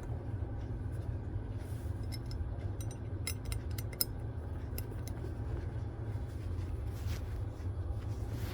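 Charles Daly 601 rifle bolt clicking and rattling in its receiver as it is wiggled against the ball-bearing detent that holds it in, a quick run of sharp metal clicks about two to four seconds in, over a steady low hum.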